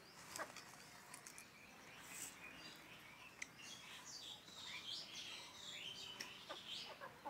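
Faint, sharp taps of chickens pecking rice grains off a concrete floor, with high bird chirps starting about halfway through and running on to the end.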